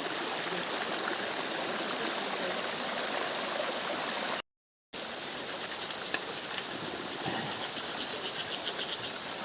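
Waterfall water rushing in a steady hiss, cut by a half-second gap of total silence a little before the middle.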